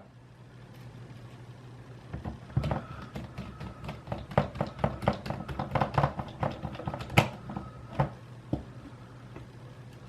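Small screwdriver driving the last screws into a PS4 controller's plastic shell: a run of quick, irregular clicks and ticks for about six seconds, over a faint steady low hum.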